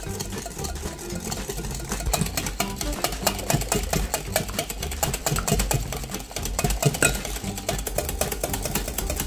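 Wire whisk beating egg whites in a glass bowl: rapid clicking and scraping of the wires against the glass, over background music.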